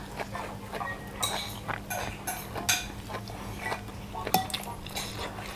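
Eating sounds: chewing and lip smacking, with a metal ladle clinking against a curry bowl, as a series of small irregular clicks and scrapes. A steady low hum runs underneath.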